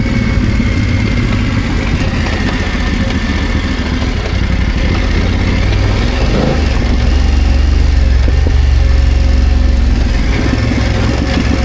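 BMW F900GS parallel-twin engine running at low revs, getting louder about two thirds of the way through.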